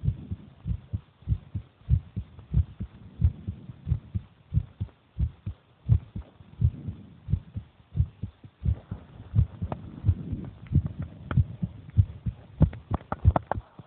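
A person's heartbeat, a steady run of low, evenly spaced thumps. From about nine seconds in, sharper clicks sound over it.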